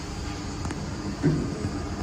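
Steady machine hum from an automatic solder paste printer running in a workshop, with a short dull knock a little past halfway.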